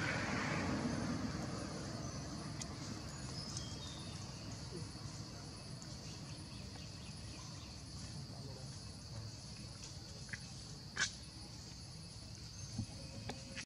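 Quiet outdoor ambience: a steady low background rumble with faint, scattered high chirps and one sharp click about eleven seconds in.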